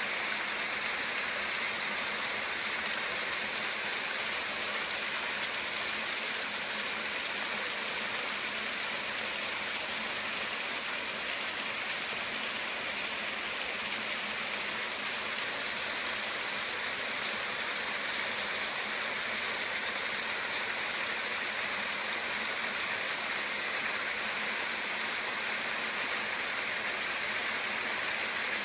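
An 80-foot mountain cascade falling steadily: an even, unbroken hiss of water, strongest in the upper range with little low rumble.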